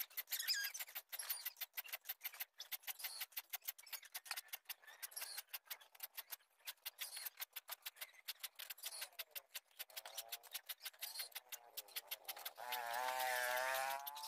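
A small hand file rasping back and forth across the teeth of a wood handsaw, about four to five quick strokes a second, sharpening the saw. Near the end a wavering pitched sound, the loudest thing heard, rises over the filing for about a second and a half.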